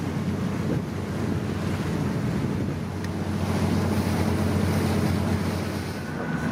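Steady wind rumbling on the microphone over the wash of sea water, aboard a sailing yacht under way.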